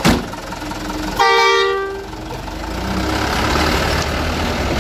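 Mitsubishi Canter truck sounding its horn once, a short blast of several tones together about a second in, after a sharp click at the very start. Its engine then runs louder as the truck pulls away.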